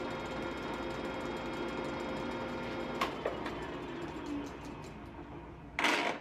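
Takisawa Webb TSL-1000D engine lathe running under power: a steady geared whirr with a thin whine. A click comes about three seconds in, after which the whirr gradually fades, and a short loud burst of noise comes near the end.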